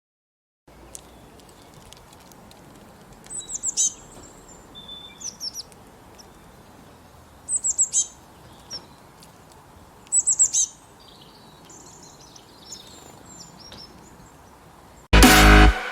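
Bird calling: three groups of three or four quick, high, falling chirps a few seconds apart, with a few softer calls between, over a faint steady background hiss. Loud electronic music cuts in near the end.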